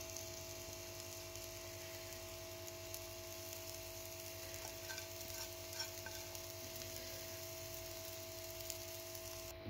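Egg-topped crepe frying gently in a nonstick pan over low heat: a faint, steady sizzle, with a few soft ticks.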